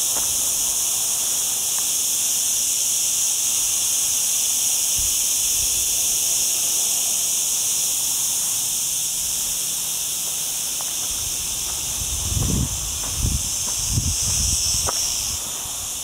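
Cicadas buzzing in a steady, high-pitched chorus with no breaks. Near the end come four low thuds of footsteps on a dirt path, under a second apart.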